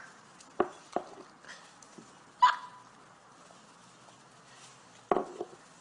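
A few sharp knocks and clinks of a small ceramic bowl being handled on a wooden table, the loudest a brief ringing clink about two and a half seconds in.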